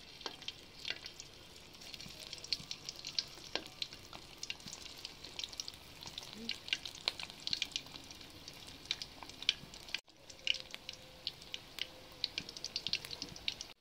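Bean vadai patties deep-frying in hot oil in a steel pan: a dense, continuous crackling sizzle, broken by a brief dropout about ten seconds in.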